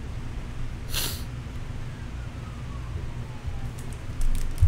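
Trading cards being handled on a desk over a low room hum. There is a short brushing hiss about a second in, and a few light taps near the end.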